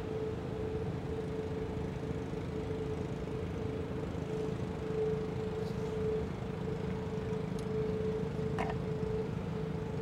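ACA Quadren electronic siren sounding its steady alert tone, one held pitch that wavers slightly in loudness, over a low rumble of background noise. A brief faint chirp comes through about eight and a half seconds in.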